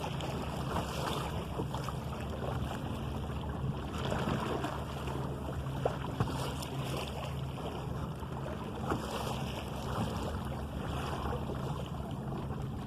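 Water rushing and splashing along the hull of an open sailing canoe under way, with wind on the microphone. One light knock about six seconds in.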